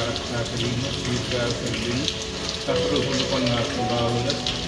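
Background music of held notes that shift to new pitches about two-thirds of the way through, over a steady hiss.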